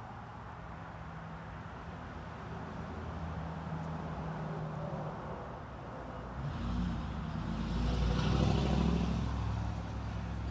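A motor vehicle's steady low engine hum, growing louder and loudest about eight seconds in, as if passing close by.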